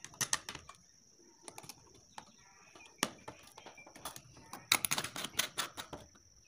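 Plastic lamp holder and screwdriver clicking and tapping against each other and the wooden board as the holder is screwed onto its PVC conduit fitting, with a quick run of clicks about five seconds in. A faint steady high whine runs underneath.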